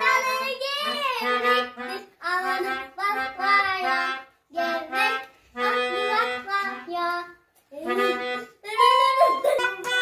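Melodica played as a simple tune in short phrases separated by brief pauses.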